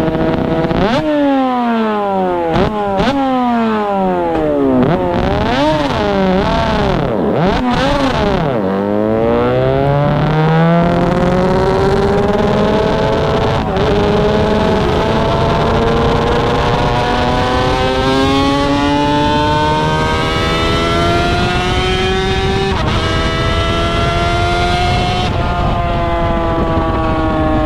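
Yamaha YZR500 two-stroke V4 Grand Prix racing motorcycle at race pace. For the first ten seconds or so the revs swing up and down sharply and quickly. After that the engine climbs in long rising pulls, the pitch dropping suddenly at each of several upshifts.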